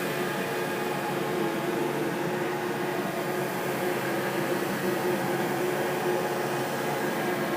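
A steady horror-ambience drone: several sustained low and middle tones held over a hiss, without change.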